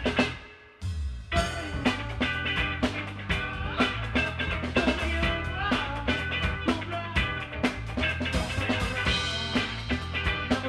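Upbeat background music with a steady drum beat. It drops out briefly about half a second in and comes back about a second in.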